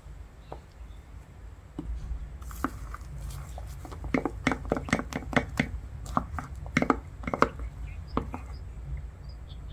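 Wooden spoon stirring whipped egg batter into cooking oil in a small ceramic cup, clicking and scraping against the cup's sides in a quick, irregular run of knocks that starts about two seconds in and thins out near the end.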